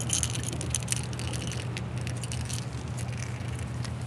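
Heddon Super Spook Jr topwater plug with its metal treble hooks clicking and rattling in quick, irregular clatters while it is worked free from a smallmouth bass's lip. The rattles inside the lure shake as it is handled. A steady low background noise runs underneath.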